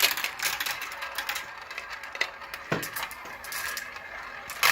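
Marbles rolling and clattering through a plastic marble run: a rapid run of small clicks that thins out, with one louder knock about two and a half seconds in.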